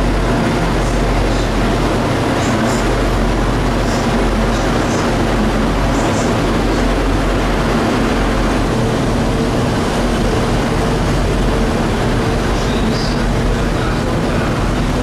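Class 60 diesel-electric freight locomotive 60 001, with its eight-cylinder Mirrlees engine, running steadily as it hauls a train of steel wagons slowly past, a continuous even engine hum with a few faint high wheel ticks.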